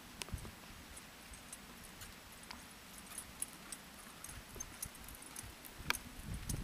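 Sorrel Quarter Horse gelding ridden at an easy gait on soft arena dirt: irregular muffled hoofbeats with light jingling and clicking of the tack, louder for a moment near the end.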